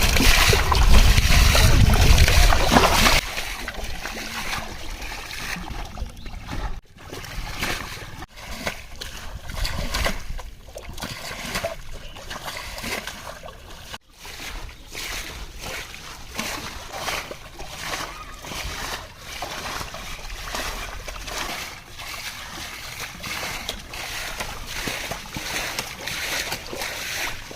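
Water splashing and sloshing, heavy and loud for the first three seconds, then a long run of irregular smaller splashes.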